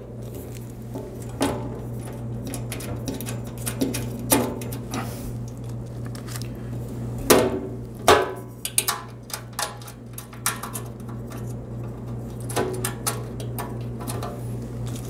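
Light metal clinks and knocks as a stainless-steel side rack frame is held against a pellet grill's steel barrel and its screws are threaded in finger tight, with two sharper knocks about halfway through. A steady low hum runs underneath.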